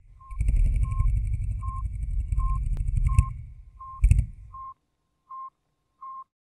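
Electronic intro sound design: nine short beeps on one pitch, about one every three-quarters of a second, over a low rumbling bed. A sharp hit comes about four seconds in, and then the bed drops away while the last beeps carry on alone.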